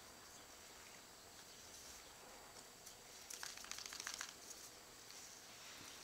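Near silence, broken a little past the middle by about a second of rapid, light clicking: a bull terrier puppy's claws scrabbling on a tiled floor.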